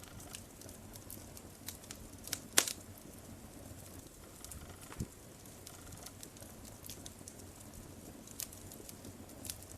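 Wood fire in a fireplace crackling: irregular sharp pops and snaps over a low steady hiss, the loudest pops about two and a half seconds in.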